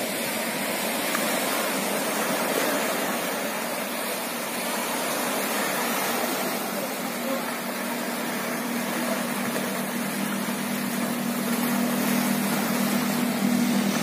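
Small sea waves breaking and washing in the shallows, a steady rushing wash. About halfway through a low steady hum comes in and grows louder toward the end.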